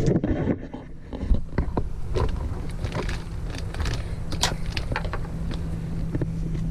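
Someone biting into and chewing a crispy-shelled burrito close to the microphone: irregular crunching clicks.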